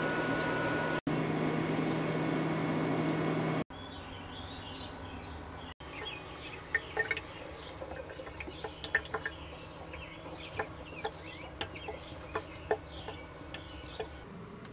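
A steady hum for the first few seconds, then birds chirping, with scattered sharp ticks.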